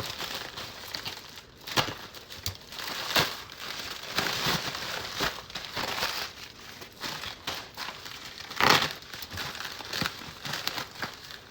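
Plastic packaging crinkling and rustling as a mailer package is handled and opened, with several sharper, louder crinkles.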